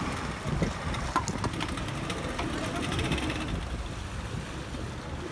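Speedboat's twin outboard motors running as the boat pulls away from the jetty, a steady low rumble.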